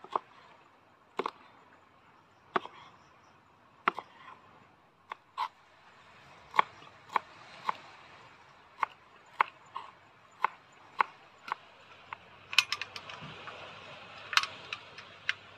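Kitchen knife chopping green chili and coriander on a wooden cutting board: separate sharp knocks of the blade against the board, about one or two a second at an uneven pace, with a quicker cluster of knocks near the end.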